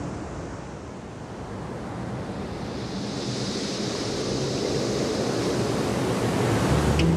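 Ocean surf: a breaking wave's rushing hiss that swells steadily louder over several seconds.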